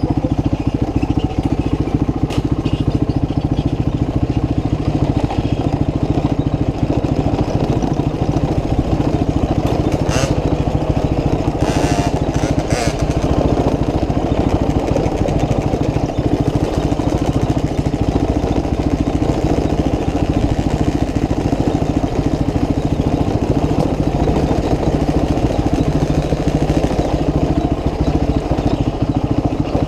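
Motorcycle engine running steadily under way, with a few short sharp clicks or knocks about ten to thirteen seconds in.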